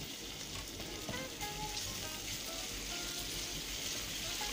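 Chopped onions sizzling in oil in a hot pan, a steady frying hiss as they soften. Faint background music notes play over it.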